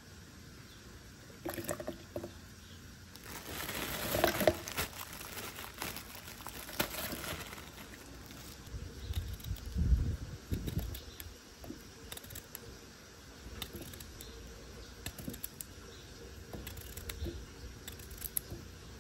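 Food being prepared for a smoothie. A plastic bag rustles and pineapple chunks drop into a plastic blender jug, then a knife slices a cucumber and the slices fall into the jug with small, light taps.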